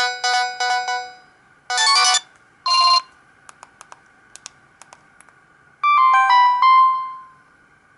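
Samsung GT-E1175T ringtones playing from the phone's speaker. A melody of electronic beeps dies away, then two short chimes sound and cut off quickly. After a few faint clicks comes a brief run of electronic notes that starts high and steps down.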